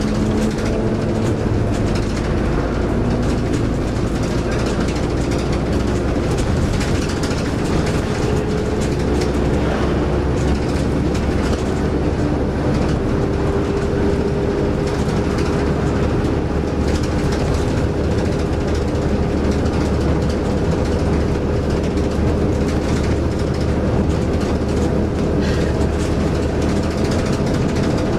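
Bus running at speed along an open road, heard from inside: a steady engine and road drone with light rattling from the bodywork, and a faint whine that slowly rises in pitch.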